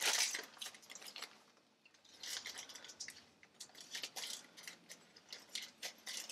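Plastic bag of frozen corn crinkling as it is handled, in short crackly bursts with a brief pause about a second and a half in.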